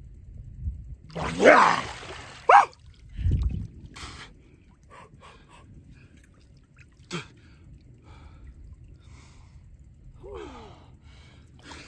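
A man gasps and cries out twice, loud and sliding in pitch, about a second in, as he comes up from a plunge into ice-cold lake water. A dull thump follows just after, then faint dripping water.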